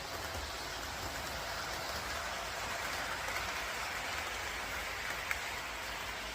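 Steady hissing noise that swells slightly mid-way, with a single sharp click about five seconds in.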